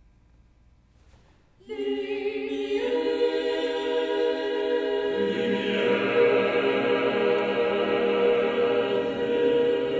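Chamber choir singing sustained chords. It comes in suddenly after a near-silent pause, about one and a half seconds in, then builds as more voices join a second later and lower voices enter about halfway through.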